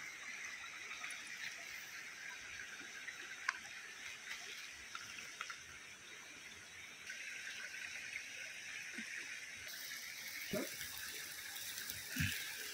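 Steady rushing of flowing stream water, with a few faint clicks and knocks.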